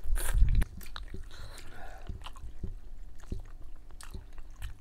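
A person slurping wide noodles from a bowl of noodle soup with one loud slurp at the start, then quieter chewing with small scattered clicks.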